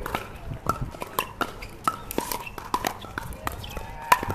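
Pickleball paddles striking the hard plastic ball: a quick, irregular run of sharp pops, about two or three a second, many with a short ring after the hit, from this court and the ones beside it.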